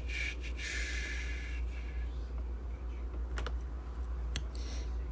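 A few scattered clicks of a computer keyboard over a steady low hum.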